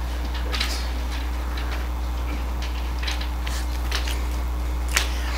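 Felt-tip marker writing on paper: a few short, faint scratchy strokes as a phrase is written, then a sharper click near the end, over a steady low electrical hum.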